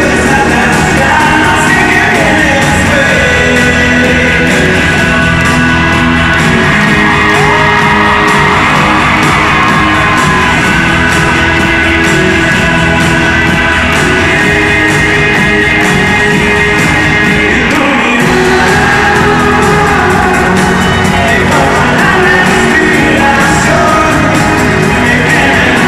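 Live pop band playing loudly in an arena hall, a male lead singer over acoustic and electric guitars, with the audience shouting along.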